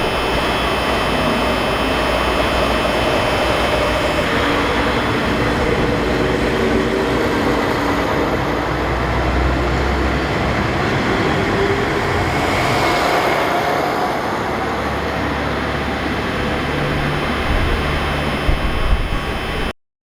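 Steady noise of the SL Hitoyoshi steam train running, mixed with strong wind buffeting the microphone in gusty low rumbles. The sound cuts off suddenly near the end.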